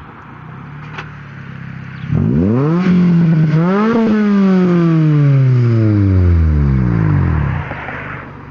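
Acura RSX four-cylinder engine revving hard: the pitch climbs steeply about two seconds in, climbs again to a peak, then falls slowly over about three seconds as it winds down. A single click comes about a second in.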